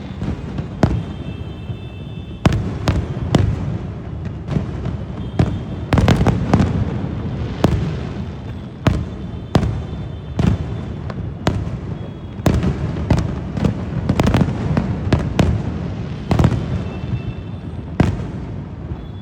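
Fireworks display: aerial shells bursting in a rapid, irregular series of sharp bangs over a continuous low rumble.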